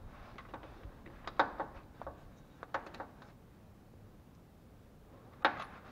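Scattered light clicks and knocks of tools and parts being handled against the underside of the car. The sharpest comes about a second and a half in, a short run follows around three seconds, and another comes near the end.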